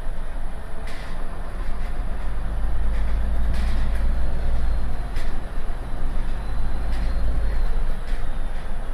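MAN Lion's City G articulated city bus heard from inside its passenger cabin while under way: a steady low engine and road rumble that swells for a few seconds in the middle, with a few short knocks or rattles.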